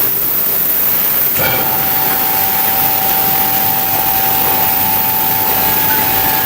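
Ozone vegetable washing machine bubbling water, a loud steady hiss. About a second and a half in there is a click, and a steady humming tone joins the hiss.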